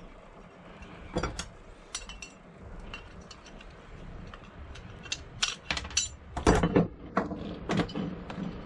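Small metal clicks and clinks as a thin tool works against the metal front base of a Bosch electric planer and its small parts are handled, coming in scattered clusters that are busiest and loudest about two-thirds of the way through.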